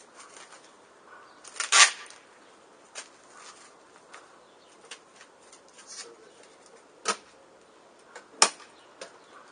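Handling noises: a short rustling scrape about two seconds in, then a few separate sharp clicks and knocks.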